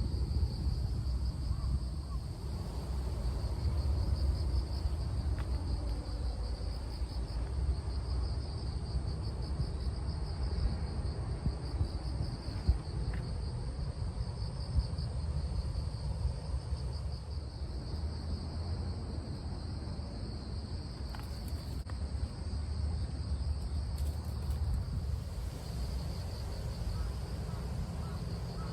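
Insects chirping in a steady, fast-pulsing trill, over a low continuous rumble.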